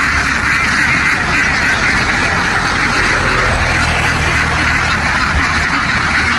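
A large flock of ducks quacking all at once in a dense, steady din. A low engine hum runs underneath, strongest about three to five seconds in.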